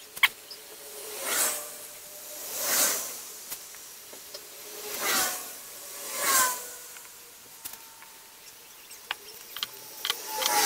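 Slow breathing close to the microphone: four long, soft hissing breaths, each swelling and fading over about a second. Near the end come a few light clicks as the sealant tube and its cap are handled.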